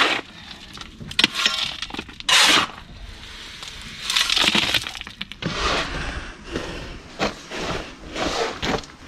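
Loose recycled stone hardcore scraping and clattering in a series of irregular bursts as it is shovelled.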